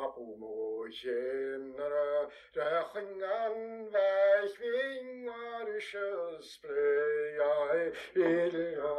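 An unaccompanied man singing a slow traditional Gaelic song from a recording, in long phrases with held notes and short breaths between them.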